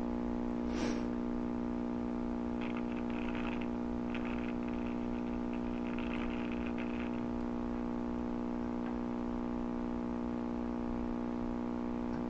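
Steady hum with many overtones from a Lafayette HA-63 tube communications receiver's speaker, the mains hum of bad electrolytic filter capacitors. A click sounds near one second in, and scratchy hiss comes and goes between about three and seven seconds in as the controls are turned.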